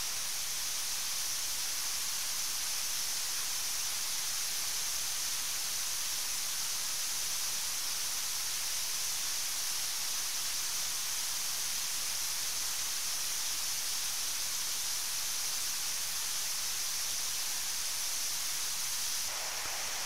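Waterfall rushing: a steady, even hiss, mostly high-pitched with little low rumble.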